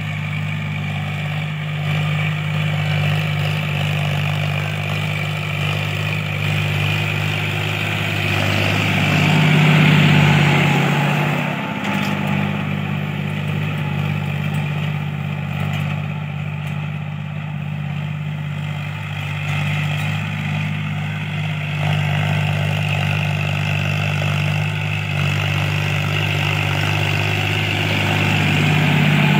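John Deere 5050D tractor's three-cylinder diesel engine running steadily as it pulls a cultivator through the soil. It grows louder about ten seconds in and again near the end as the tractor comes close.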